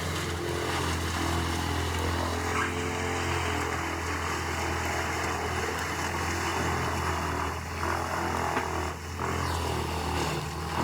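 Large wood chipper running steadily, with a constant low engine hum under a broad mechanical noise.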